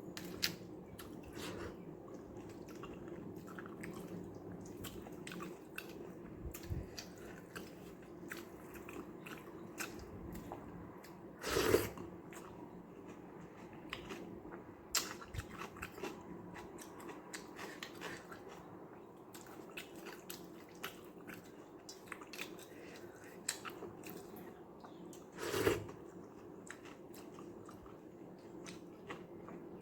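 A person chewing a mouthful of rice with watery sambar, close to the microphone: a run of small wet smacks and clicks. Two louder, longer mouth sounds stand out, about 12 and 26 seconds in.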